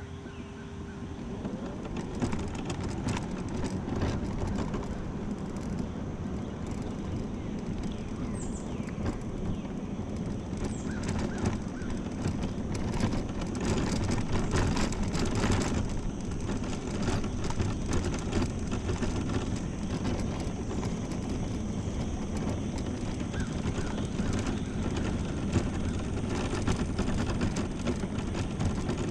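Electric mobility scooter driving along cracked asphalt: a steady motor hum and tyre noise with frequent small rattles and knocks, building up over the first two seconds as it pulls away.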